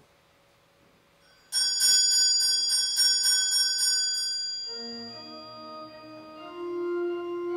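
Small altar hand bell rung rapidly, about three to four strikes a second, for nearly three seconds and then ringing away, the signal that Mass is beginning. Sustained keyboard notes start up soon after.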